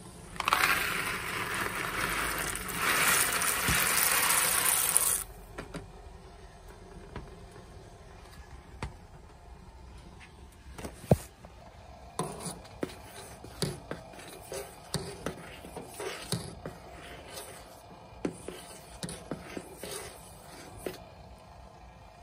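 A loud hissing noise lasting about five seconds, then, from about twelve seconds in, a spoon stirring in a metal pot on the stove, with quick irregular knocks and scrapes against the pot.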